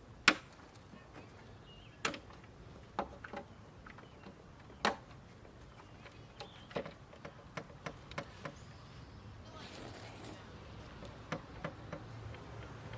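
Scattered sharp clicks and knocks of hands and tools working on plastic engine-cover fasteners under a car's hood, with a brief rustle about ten seconds in.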